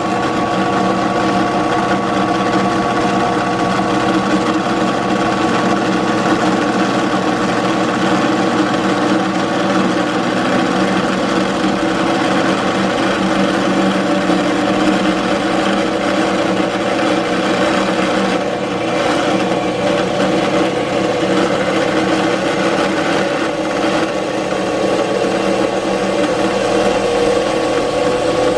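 An electric motor running steadily at constant speed with a hum and several steady whining tones, one of which rises slightly in pitch near the end.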